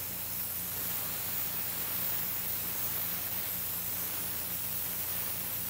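Airbrush spraying paint with a steady hiss of compressed air, played around the edge of a stencil.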